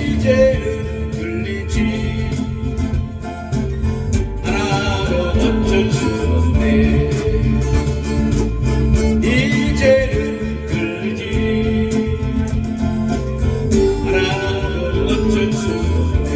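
A song sung by one voice over guitar-led backing music.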